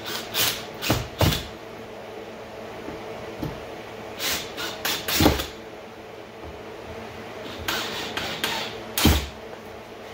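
Short, sharp knocks and brief bursts from a cordless screw gun driving screws through a 3-inch PVC pipe holder into the underside of a wooden cabinet, with the plastic knocking against the wood. They come in three short clusters, the loudest knocks about five seconds in and again near the end.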